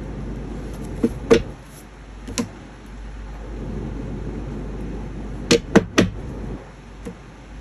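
Sharp clicks and taps of tarot cards being handled and set down on a table: three spaced out in the first couple of seconds, then three in quick succession later on, over a steady low background hum.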